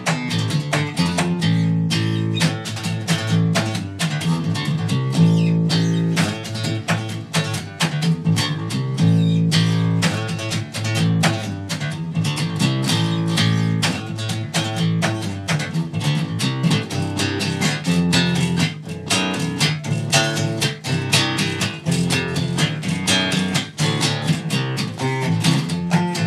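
Jackson electric bass played fingerstyle: a fast riff of rapidly plucked notes, moving often in pitch, played without a break.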